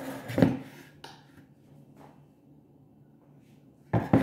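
A plastic blender jar and glass mug are handled on a tabletop, giving a loud knock about half a second in and two quick knocks close together near the end. A faint steady hum runs between them.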